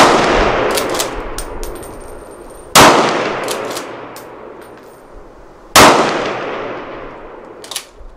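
Three rifle shots from a Savage Impulse .308 fitted with a Rugged Rx muzzle device, about three seconds apart, each report echoing and fading over about two seconds. Lighter metallic clicks and clinks come between the shots.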